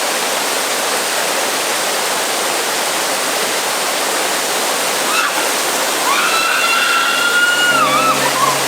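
Waterfall pouring steadily, a dense rushing of falling water. About six seconds in, a long, even high-pitched call with overtones rises over it for about two seconds and dips at its end.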